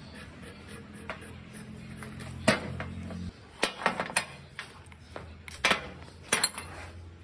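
Steel hydraulic hose fittings clinking and knocking as they are handled and set down on a metal work surface: a scattering of sharp metal clinks, the loudest about two and a half seconds in, more in small clusters later. A low steady hum runs underneath and stops about halfway through.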